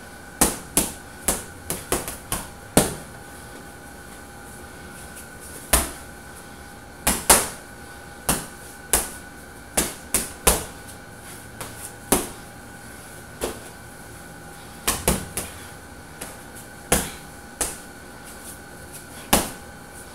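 Boxing gloves punching a hanging heavy bag: about two dozen sharp thuds, thrown in quick combinations of two to four with pauses of a second or more between.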